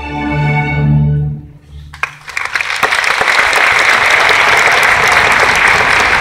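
A large string orchestra holds its final chord, which dies away about a second and a half in. A few scattered claps follow, then a big crowd breaks into loud, sustained applause.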